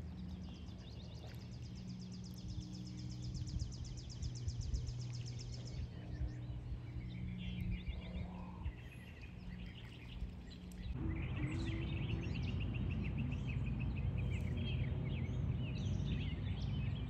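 Outdoor ambience with small birds singing: a fast, high trill for the first few seconds, then other chirping calls after about eleven seconds, over a steady low hum.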